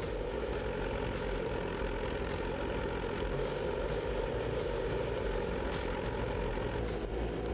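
A heavy machine's engine running steadily at an even speed.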